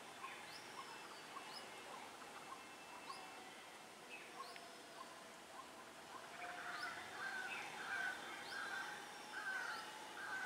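Several birds chirping, with many short, quick notes throughout. About six seconds in, a louder run of repeated calls sets in, several a second.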